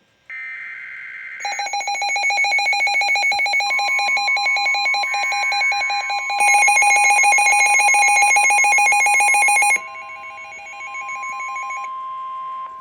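Weather radio receivers sounding their warning alarms: fast, pulsing electronic beeping from more than one receiver, overlapping, over the steady 1050 Hz NOAA Weather Radio warning tone. The beeping gets louder about six seconds in as another alarm joins. It drops sharply near ten seconds, and the last beeping stops about two seconds later. The alarms signal an incoming severe thunderstorm warning.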